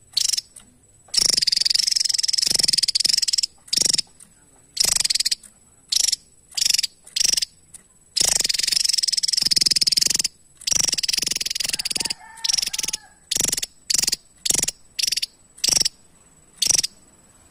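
Javan tesia singing: high, rapid buzzing trills in bursts. A few long phrases of one to three seconds come first, then a quick series of short bursts of about a quarter second each in the second half.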